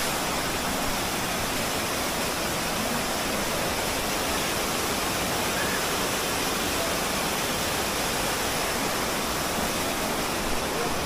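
Water cascading down a rocky, tiered waterfall, a steady even rushing noise.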